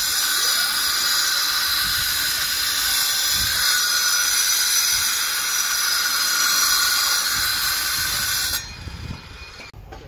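Loud, steady hissing of a compressed-air jet blowing dust and debris off a concrete pile head; it cuts off suddenly near the end.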